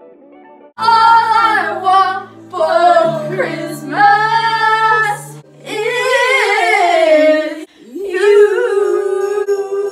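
Loud female singing in several phrases with bending pitch over a low held chord, starting about a second in.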